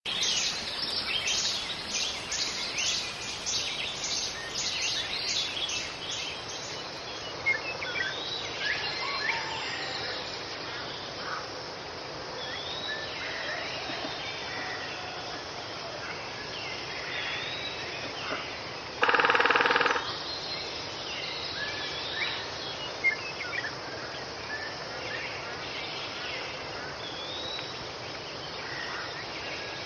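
Forest ambience: many birds chirping and whistling over a steady background hiss, with rapid chirping in the first few seconds. One loud, harsh call lasting about a second comes about 19 seconds in.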